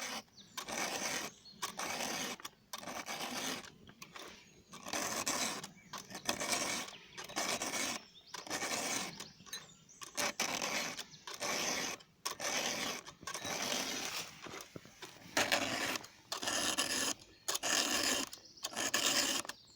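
Hand file scraping across the cutter teeth of a chainsaw chain in steady, even strokes, about one a second.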